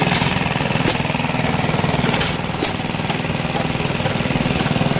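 Small scale-model hopper-cooled gas engine running with a rapid, even exhaust beat, with a few sharp clicks over it.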